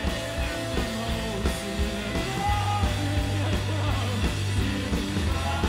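Indie rock band playing live: electric guitar over bass guitar and drum kit, with a strong low bass line.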